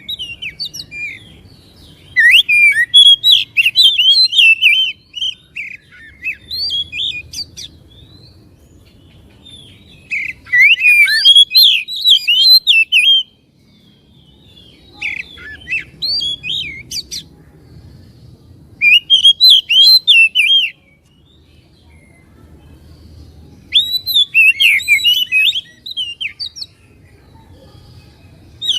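Oriental magpie-robin (kacer) singing: about five bursts of rapid, varied whistled notes, each a few seconds long, with pauses between them.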